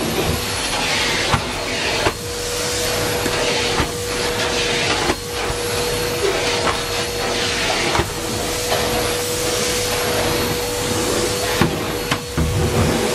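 Numatic Henry Pet canister vacuum running steadily, a hiss of suction with a steady motor whine, interrupted every second or two by brief dips and knocks as the nozzle is moved about.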